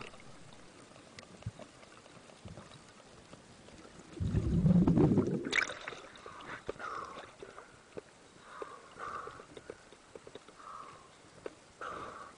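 Underwater ambience: faint scattered clicks and short hissy patches, with one loud low rushing burst about four seconds in that lasts about a second and a half.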